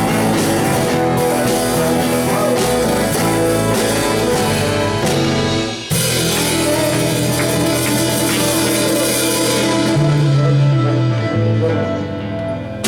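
A live rock band playing: electric guitar, bass and drums, with a falling bass run near the end as the song winds down.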